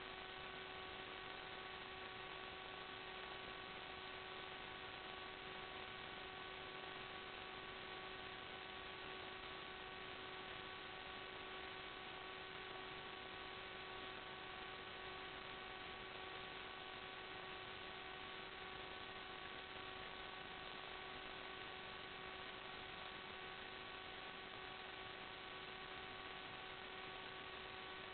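Steady electrical hum over a constant hiss: one unchanging tone with evenly spaced overtones that never shifts in pitch or level. Electronic noise on the FPV video recording's audio track, not the drone's motors.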